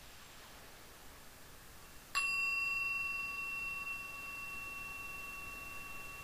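A single bell-like chime struck once about two seconds in, its high ringing tone fading a little and then holding, over a faint hiss.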